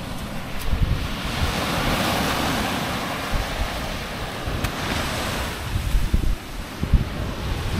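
Surf washing onto a beach, with wind buffeting the microphone in uneven gusts.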